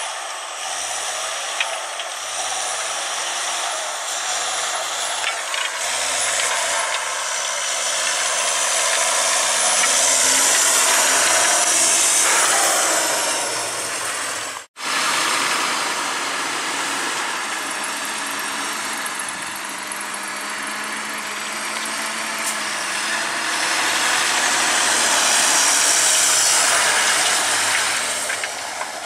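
John Deere tractor's diesel engine working under load as it pulls a disc harrow through soil, the discs and frame rattling; the sound swells twice as the tractor passes close. It cuts out for an instant about halfway through.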